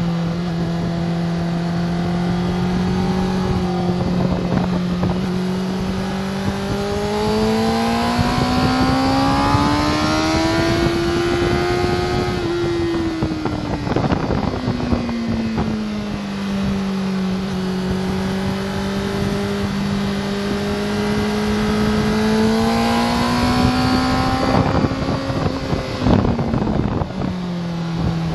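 Sport motorcycle's engine heard from onboard at track speed, its pitch rising for several seconds under acceleration, falling as the throttle closes, then rising and falling again near the end. Wind rushes over the microphone throughout.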